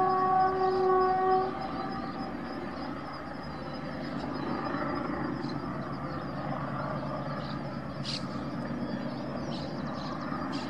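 Diesel locomotive's air horn sounding a chord of several steady tones, which cuts off about a second and a half in. After it comes the steady rumble of freight wagons rolling past, with a few short bird chirps near the end.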